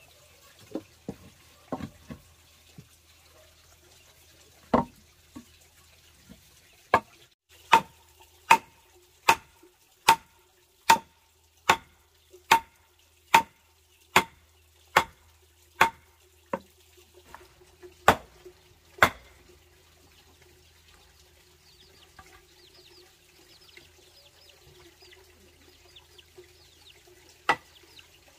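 A steady series of sharp wooden knocks, a little more than one a second for about twelve seconds, each with a slight ring. After a pause, one more knock comes near the end.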